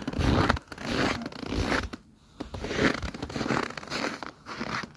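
Footsteps crunching through snow, one crunchy step roughly every half second to second, with a brief pause about two seconds in.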